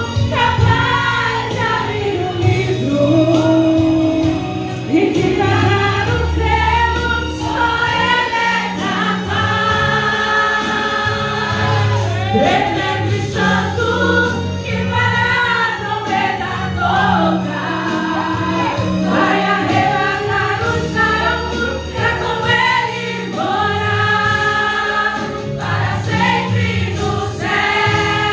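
Women's choir singing a gospel hymn together over a sustained low instrumental accompaniment.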